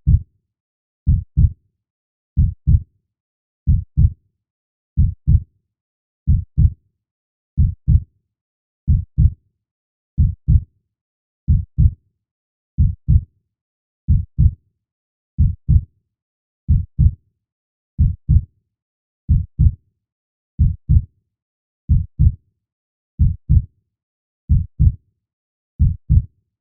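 A heartbeat beating slowly and steadily: a low double thump, lub-dub, about once every 1.3 seconds, with silence between the beats.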